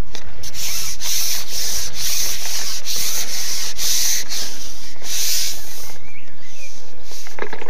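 Scratchy rubbing noise right at the microphone, pulsing in even strokes about three times a second, as of cloth or a hand brushing the camera's mic; a brief burst of lower clattering near the end.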